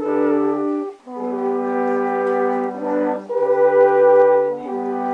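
Alphorn music: slow, long held notes that change pitch in steps, with a brief break about a second in.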